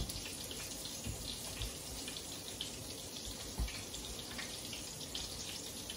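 Floured cubed steak frying in hot oil in a stainless steel pan: a steady sizzle with constant fine crackling, and a few low thumps.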